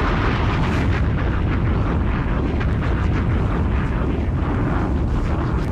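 Sustained explosion sound effect: loud, dense noise with a heavy low end, holding steady throughout.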